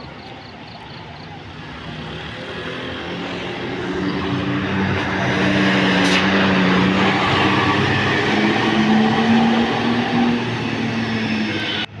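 Large diesel tour bus driving past close by: engine and tyre noise growing louder as it approaches and loudest as it passes, the engine note holding steady and rising slightly in pitch. The sound cuts off abruptly near the end.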